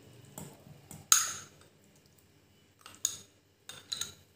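A metal spoon scraping and clinking against a small bowl as chopped mango is pushed off it into a stainless steel mixer-grinder jar: a few short scrapes and clinks, the loudest about a second in.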